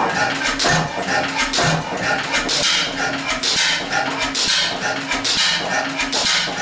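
1911 Deutz E3 stationary gas engine running, with a steady rhythmic beat of hissing puffs and mechanical clatter.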